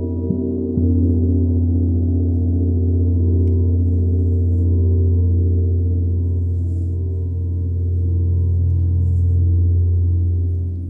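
Large hanging bronze gong played with a soft felt mallet: a few light strokes in the first second build it to a loud, deep, sustained hum with pulsing, wavering overtones that swells and ebbs.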